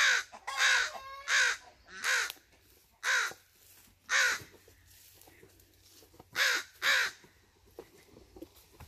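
Crows cawing, scolding a person walking below them: about eight caws in the first seven seconds, in quick runs and pairs with short gaps between.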